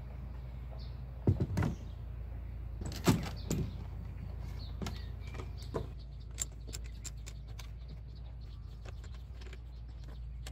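Outboard motor being mounted on a boat transom: its aluminium clamp bracket knocks against the stainless-steel reinforcing plate as it is set down, with a few sharp knocks in the first four seconds, the loudest about three seconds in. Lighter metallic clicks and faint ticks follow as the clamp screws are handled.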